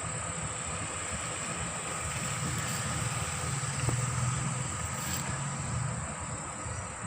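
Steady high-pitched drone of crickets, with a low rumble of a distant vehicle swelling in the middle and fading again.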